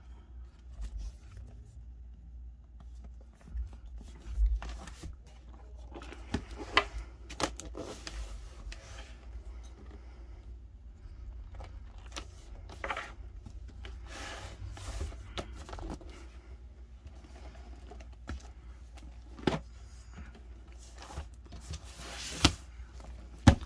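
Leather-rebound Bibles being handled: soft rubbing and scraping of the leather covers and rustling as the pages are fanned through, with scattered sharp knocks as the books are set down, the loudest near the end.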